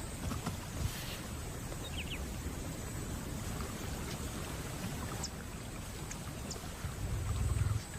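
Water sloshing and splashing as a lion crosses a flooded Okavango Delta channel, with a low thud near the end and a few faint bird chirps.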